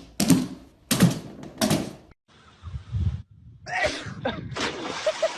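A run of heavy thuds or knocks, four in the first two seconds about three-quarters of a second apart, followed by softer low bumps and then a noisier stretch with short squeaky pitched sounds near the end.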